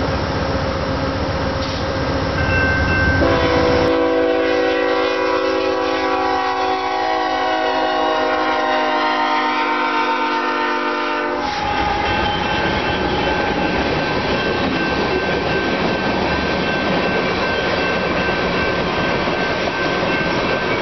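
A freight train's diesel locomotive air horn sounds one long chord of several notes for about eight seconds, starting about three seconds in and cutting off sharply. The train's rumble and the wheels on the rails run under it and carry on after, as the tank cars roll past.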